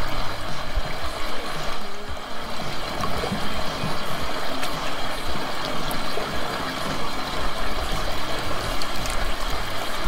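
Water trickling and running into a drainage catch basin through its PVC inlet pipes, with background music.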